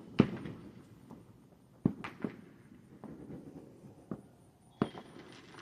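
Scattered distant firework bangs: about six sharp pops at irregular intervals, the loudest just after the start.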